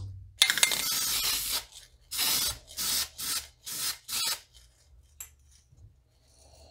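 Aerosol can of automotive primer filler spraying a wooden lure: one long burst of about a second, then a run of about five short bursts.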